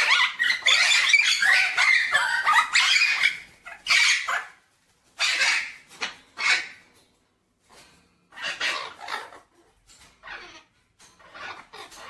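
Red-lored Amazon parrots squabbling with harsh squawks: a dense run of overlapping calls for the first four seconds or so, then shorter bursts with pauses between. It is a quick quarrel within the flock.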